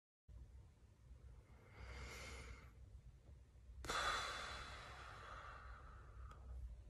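A man breathes in, then lets out a long, heavy sigh about four seconds in that starts suddenly and fades away over about two seconds.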